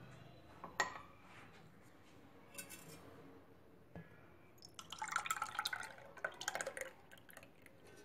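Milk being poured into a glass bowl of grated carrots, splashing and trickling for about two seconds from about five seconds in. A sharp tap comes about a second in.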